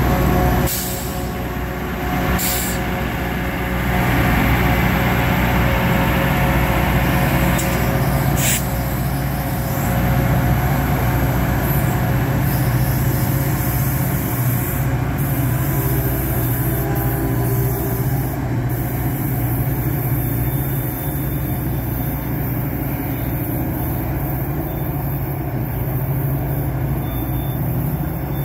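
Caltrain diesel locomotive running as the train pulls out and away, a steady deep engine drone that drops in level about a second in. Two short sharp sounds come through early on the drone.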